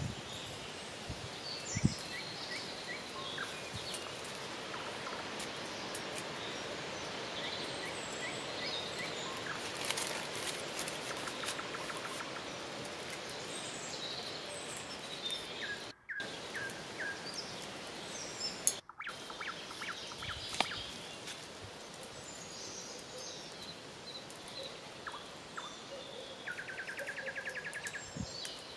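Forest ambience with scattered bird chirps and calls over a steady outdoor hiss, mixed with close rustling of a cloth bundle and paper being unwrapped and a few sharp knocks of things being set down. A rapid pulsed trill comes near the end.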